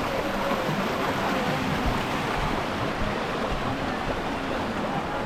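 Steady rush of flowing water from a river cascade, an even noise with faint voices in the background.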